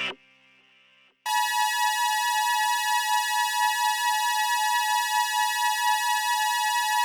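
Synthesizer playing the Emergency Alert System attention signal: two steady tones near 853 and 960 Hz held together with a bright, buzzy timbre and a slight wobble in loudness, starting about a second in. The tail of a loud synthesized header burst cuts off at the very start.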